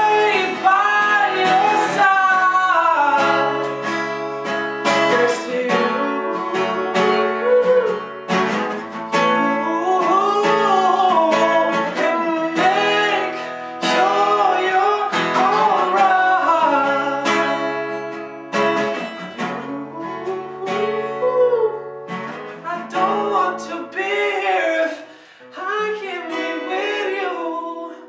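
A solo voice singing long, bending notes over acoustic guitar. The music thins out and gets quieter near the end.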